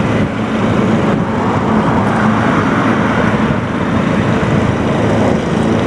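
Steady motor-vehicle noise: a low engine hum under an even rushing sound.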